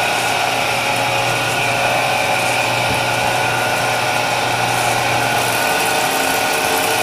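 Motor-driven dough roller machine running steadily, its rollers and chain drive making a constant mechanical hum as dough is fed through.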